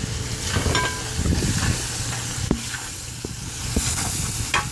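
Carrot strips, meat and onion frying in hot oil in a large kazan, sizzling steadily, with a few sharp clicks of a metal skimmer stirring against the pot in the second half.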